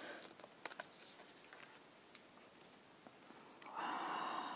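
Faint small clicks and taps of ink pads and plastic cases being handled in a clear plastic storage box, with a longer, louder rustling sound from about three and a half seconds in.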